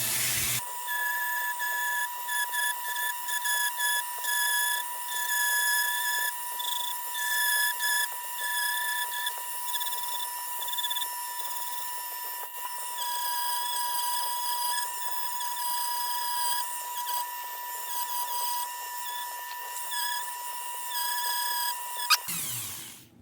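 High-speed rotary tool whining steadily as it grinds down a solder blob, its upper pitch wavering as it bites, then switching off abruptly near the end.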